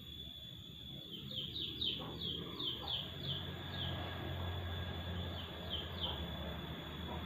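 A small bird chirping in a quick series of short, falling notes, about three a second for a few seconds, then twice more near the end, over a faint steady high whine and low hum.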